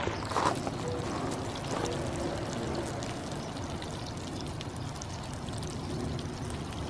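Trout fillets frying in hot oil in a skillet: a steady sizzle full of small crackles and pops.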